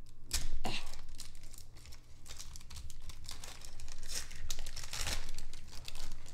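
Crinkling of a trading-card pack's glossy wrapper as it is torn and handled, in irregular crackling bursts, loudest about half a second in.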